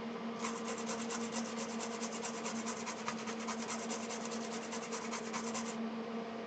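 A toothbrush scrubbing alcohol over a power supply circuit board to lift flux residue, in quick, even strokes, about six a second, that stop near the end.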